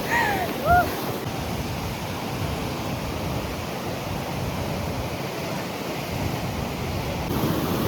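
Steady rushing outdoor noise, from a stream or wind on the microphone, running evenly throughout. Two short gliding cries sound in the first second.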